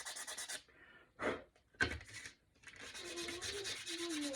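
Sandpaper rubbing back and forth on the edge of a wooden craft cutout in quick, even strokes. The strokes stop for about two seconds, during which there are two short, sudden sounds, then resume.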